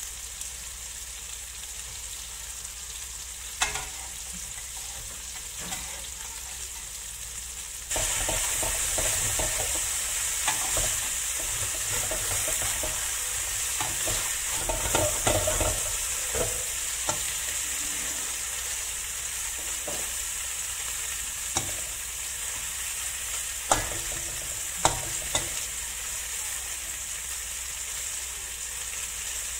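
Cubes of tofu sizzling in hot oil in a nonstick wok, stirred and turned with a wooden spatula. The sizzle jumps suddenly louder about eight seconds in, and the spatula scrapes and knocks against the pan a few times.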